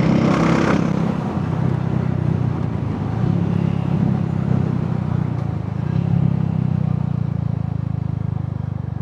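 Royal Enfield Hunter 350's single-cylinder engine and exhaust running while riding. It swells twice as the throttle opens and eases, then settles lower and quieter near the end. A brief rush of noise comes in the first second.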